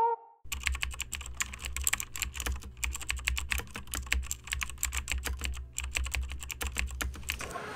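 Computer keyboard typing sound effect: rapid, irregular key clicks over a low hum, stopping just before the end.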